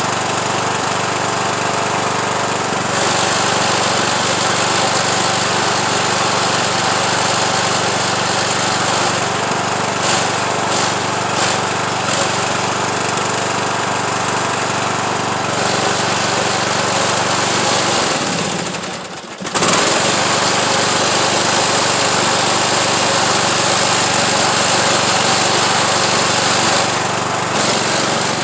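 Craftsman YT3000 riding mower engine running steadily as the tractor is driven. About two-thirds of the way through the sound drops away briefly, then comes straight back at full level.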